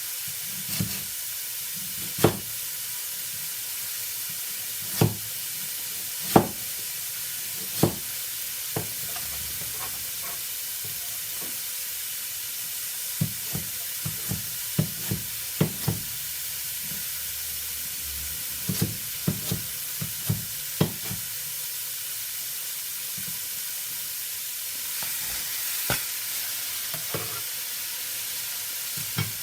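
Kitchen food preparation: a steady hiss like frying, broken by sharp knocks of utensils or a knife, a few single ones at first and then quick runs of taps.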